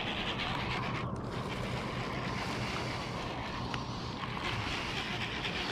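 Steady wind buffeting the microphone over small waves lapping on open bay water.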